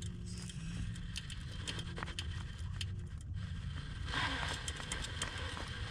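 RC rock crawler's electric motor and gear transmission running at low crawl speed with a faint steady hum for the first three seconds, while its tires and metal axles click and scrape on rock. About four seconds in, a louder stretch of scraping and crunching as the tires grind over rock and dirt.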